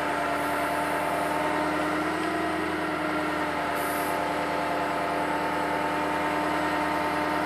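The 6.0-litre diesel engine of a 2004 Ford F550 bucket truck running steadily, with an even whine on top, while the hydraulic aerial boom moves the bucket.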